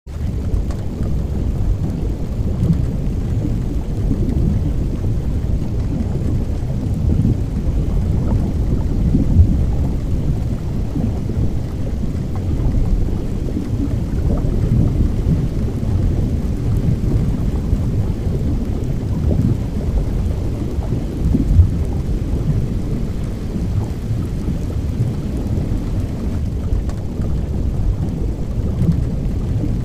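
Steady low rumbling noise used as the cover sound of a subliminal audio track, with two brief louder bumps, about a third and about two-thirds of the way in.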